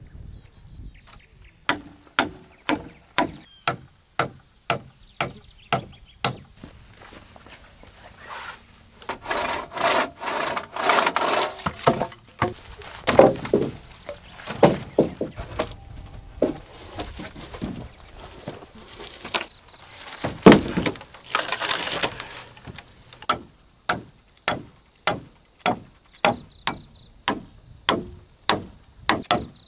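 Axe blows on wood poles, sharp and evenly paced at about two a second, in a run near the start and again near the end, where each blow carries a faint metallic ring. In between come longer stretches of scraping, rasping noise from the rough timber being worked.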